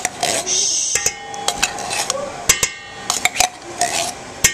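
Metal utensil tapping and scraping against a stainless steel mixing bowl as thick condensed cream of chicken soup is worked out into shredded chicken: an irregular string of sharp clinks and knocks.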